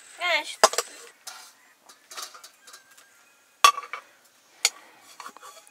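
Metal dishes and utensils clinking and knocking, a few separate sharp clinks, the loudest about two-thirds of the way through.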